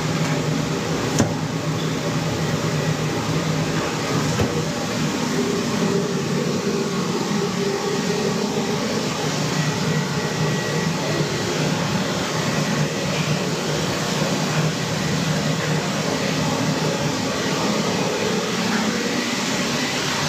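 Steady whooshing hum of a ventilation fan, with one sharp knock about a second in.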